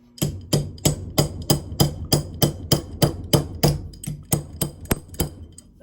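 Rapid, evenly paced hammer blows on a small piece of scrap metal, about three a second, each with a metallic ring. The way it cuts tells the worker the piece is not aluminum, but brass or stainless steel.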